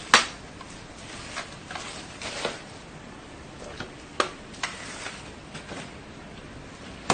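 Scattered sharp plastic clicks and knocks from the parts of a cordless floor sweeper being handled and fitted together, the loudest just after the start, another about four seconds in and one more at the end.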